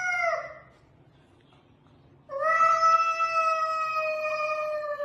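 A cat yowling in long drawn-out calls, a threat yowl in a standoff with another cat. The first call's pitch drops as it ends just after the start. After about two seconds of quiet, a second, steadier yowl lasts about three seconds.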